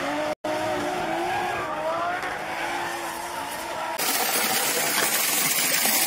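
Drift cars sliding, with wavering tyre squeal over engine noise. About four seconds in it cuts abruptly to a steady rush of flowing stream water.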